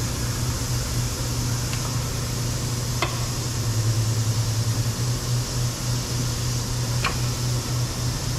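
Steady low mechanical hum, wavering slightly, with two faint clicks, one about three seconds in and one about seven seconds in.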